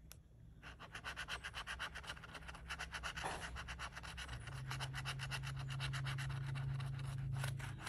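A metal key scraping the scratch-off coating from a lottery ticket in rapid back-and-forth strokes. A steady low hum comes in about halfway through.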